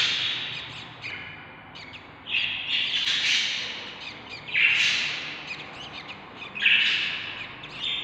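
Baby budgerigar chicks giving hoarse, hissy begging calls while an adult budgie bends over them to feed, in several bursts a second or two apart.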